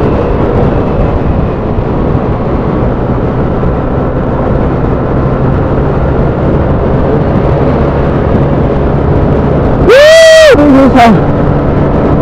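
Stock Yamaha Aerox scooter running at road speed, its engine hum mixed with a steady rush of wind noise on the rider's microphone. About ten seconds in, a brief loud pitched sound rises and falls, then drops away in a lower falling tone.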